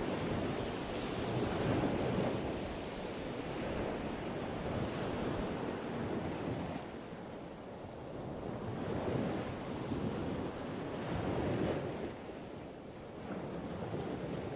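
Wind gusting against a body-worn camera's microphone: a rumbling rush that rises and falls, easing briefly about halfway through and again near the end.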